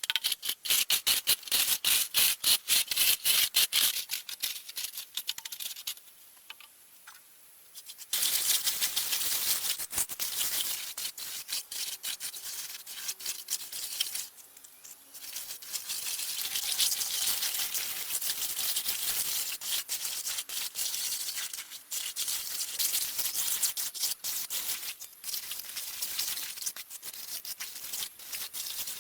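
Hand tools scraping and working wet concrete: rapid, repeated rasping strokes of trowel or screed over the fresh mix as it is spread and levelled. There is a quieter pause partway through.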